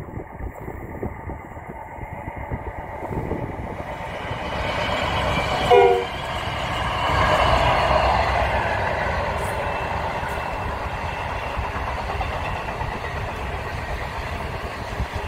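Long-distance passenger train passing close by. Its locomotive approaches with a rising rumble and gives a short horn blast about six seconds in, and then a long rake of steel carriages rolls past with a steady clatter of wheels on rail.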